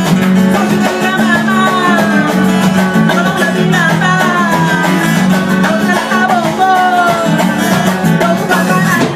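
Live band music: a singer's voice carrying a gliding melody over strummed acoustic guitar, with steady bass notes and drums.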